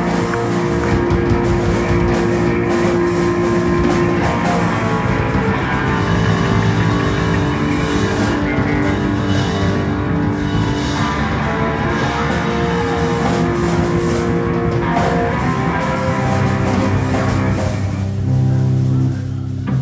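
Live rock-blues music led by guitar. Near the end the higher parts fade, leaving low notes held.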